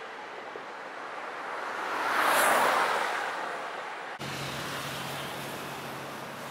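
A car driving past on a road bridge, its tyre and engine noise swelling to a peak about halfway through and fading away. Near the end the sound cuts off abruptly to a steadier, quieter background of traffic noise with a low hum.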